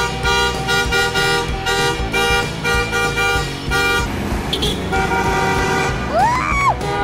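Car horns honking in long held blasts, one after another and overlapping, in street traffic. Near the end comes a brief glide that rises, holds and falls.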